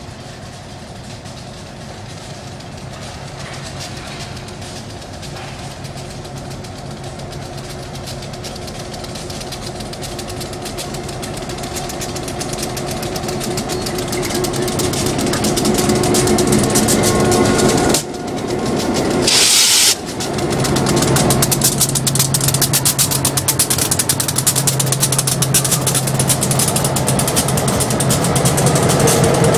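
Diesel freight locomotives approaching and passing close by, their engines growing steadily louder as they near, with a short burst of hiss about two-thirds through. Near the end the first empty ballast hopper cars start rolling past.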